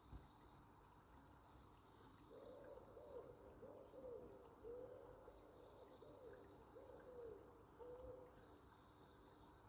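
A bird calling faintly: a run of about eight short, low, arched notes, starting about two seconds in and stopping shortly before the end. A soft knock comes right at the start.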